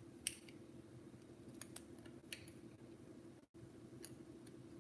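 A few faint, sharp clicks and taps of small plastic parts being handled, as a computer mouse is taken apart, over a steady low hum. The loudest click comes just after the start.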